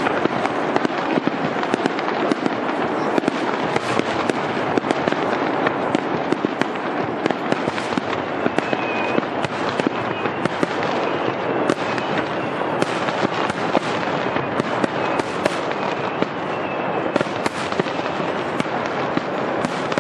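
Fireworks going off in a dense, continuous barrage of rapid crackles and bangs.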